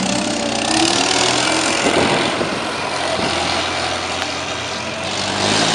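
Motor vehicle driving on a highway: a steady engine hum under road and tyre noise, swelling a little about a second in and again near the end.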